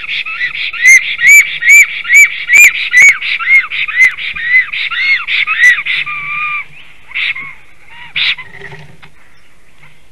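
Black stork singing: a rhythmic series of whistled notes, each rising and falling, about two to three a second. The notes end about six and a half seconds in, and a few single notes follow.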